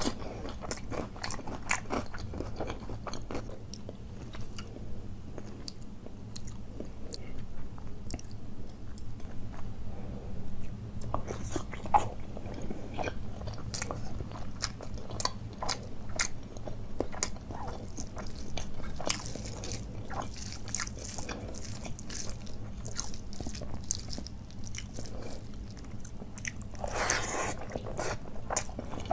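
Someone biting and chewing crunchy food, with many short crunches and clicks, and a longer burst of crunching noise near the end.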